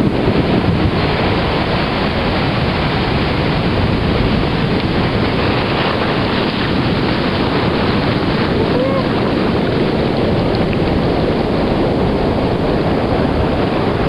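Surf breaking on a sandy beach, mixed with wind buffeting the microphone: a steady rush of noise.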